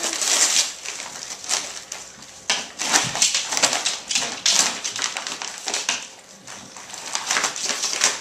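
Christmas wrapping paper crinkling and tearing in irregular bursts as a bulldog bites and paws at a wrapped present.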